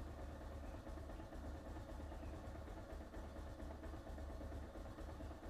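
Bajaj Pulsar 220F's 220 cc single-cylinder engine idling steadily at a low idle set near 1,000 rpm while it warms up after a cold start.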